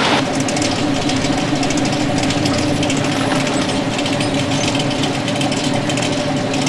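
Engines of classic American cars idling, a steady rumble with a fast, even pulse.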